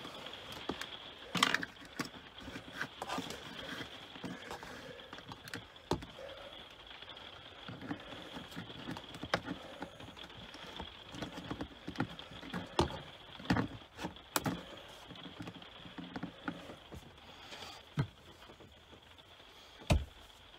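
Irregular clicks, knocks and small handling noises of fitting a 12 V USB spotlight to its mounting plate with two small screws.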